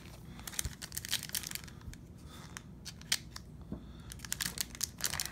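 Foil wrapper of a hockey trading-card pack crinkling and tearing as it is ripped open by hand, in a string of short, sharp crackles.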